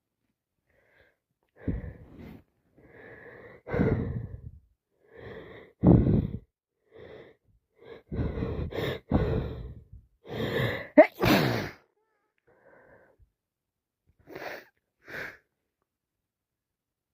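A woman with a heavy head cold takes a string of wheezy, catching breaths as a sneeze builds, breaking into a wet sneeze about eleven seconds in. Two short breaths follow near the end.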